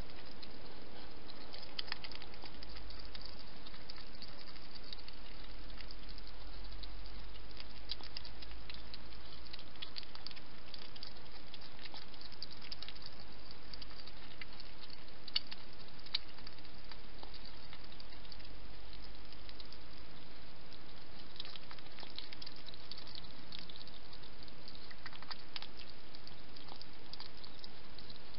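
Hedgehog feeding at a bowl: a run of small, irregular clicks over a steady hiss.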